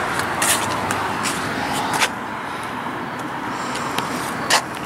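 Steady road traffic noise from a nearby street, a continuous wash of tyres and engines, with a few short knocks, the loudest near the end.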